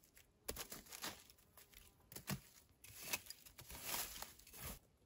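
Gloved hand scraping and gathering dry forest-floor litter (needles, twigs, bark bits), a series of irregular rustling, crunching scrapes.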